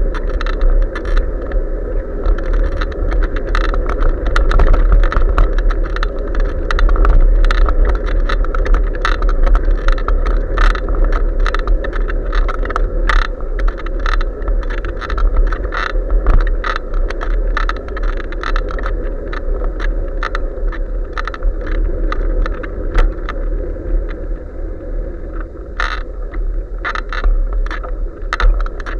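Bicycle riding on pavement heard through a bike-mounted SJ4000 action camera: a steady low rumble of wind and tyre noise with frequent rattling clicks throughout.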